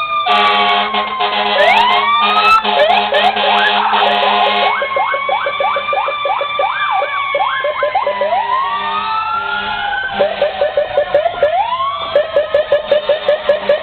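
Several fire truck sirens sounding at once: slow wails rising and falling, quicker yelps, and a steady blaring horn for about the first four seconds. Near the end one siren switches to a rapid yelp of several sweeps a second.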